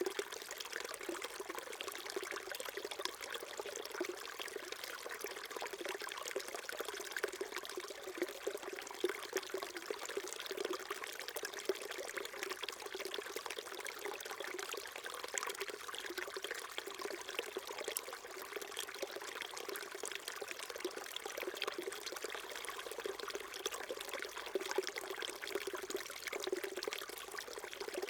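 A small mountain stream trickling and babbling over stones, a steady, even flow of water.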